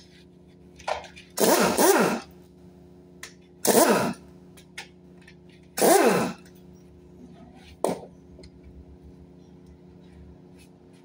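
Pneumatic wrench run in three short bursts, the first one longer, each a hissing whirr whose pitch falls as the tool spins down. A single sharp click follows, over a steady low hum.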